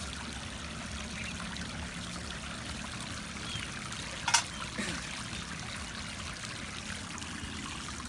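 Water trickling steadily as it wells up and flows over a stone Shiva lingam. A sharp click about four seconds in, and a fainter one just after.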